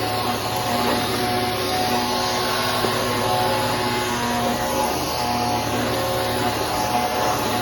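Bissell PowerForce Helix 3313 bagless upright vacuum cleaner running steadily while vacuuming, a continuous motor whine over rushing air.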